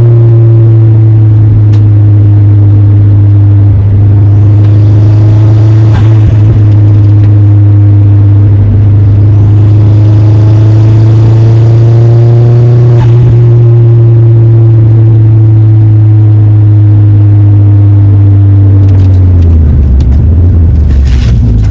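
Vauxhall Zafira's engine and exhaust droning loud and steady while driving at a held speed, the note easing slightly up and down, then dropping lower near the end as the revs fall.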